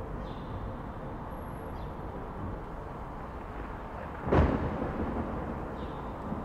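Steady low outdoor rumble, with a single sudden loud boom about four seconds in that dies away within half a second.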